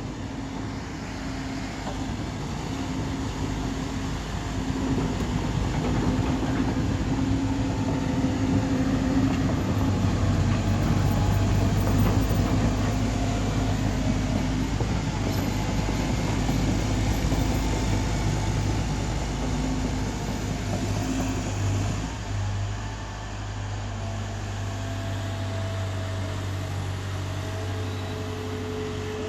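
Excavator's diesel engine running steadily, building up in the first several seconds and easing back about two-thirds of the way through.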